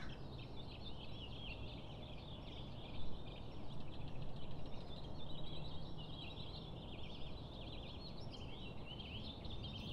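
Several small birds chirping and singing over a low outdoor rumble, with a short knock about three seconds in.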